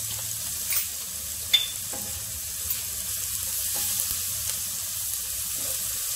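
Crushed garlic and cumin seeds sizzling in hot oil in a nonstick pan: a steady hiss with a few sharp pops, the loudest about one and a half seconds in.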